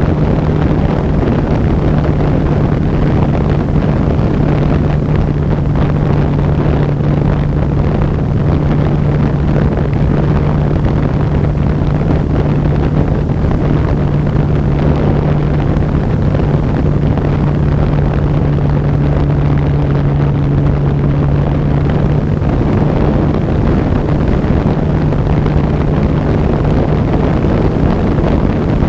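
Wind rushing over the onboard camera of a radio-controlled model aircraft in flight, with a steady low hum underneath.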